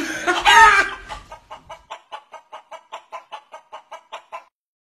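A chicken clucking in a rapid, even series of short calls, about four a second, after a loud cry in the first second; it cuts off abruptly near the end.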